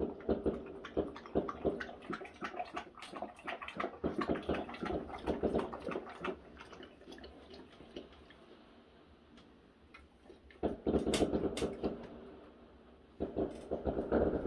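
Fireworks going off outside, heard through a window: a run of rapid cracks and pops for the first several seconds, then, after a lull, two louder crackling bursts near the end.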